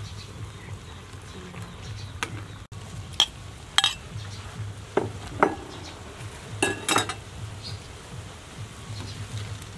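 Metal ladle stirring soup in an aluminium cooking pot, knocking and clinking against the pot's side several times over a steady low hum.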